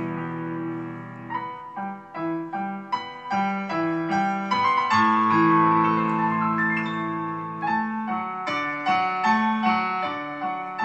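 Instrumental introduction of a Turkish art-music (sanat müziği) backing track: a piano-like keyboard plays a melody of separate notes over held lower chords.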